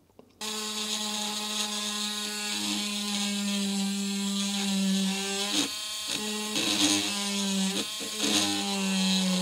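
Small handheld rotary tool with a drill bit, switched on about half a second in and running with a steady whine while it drills into the plastic case of a Dallas real-time clock chip. The whine dips briefly a couple of times as the bit bites. The bit is blunt: "not very sharp".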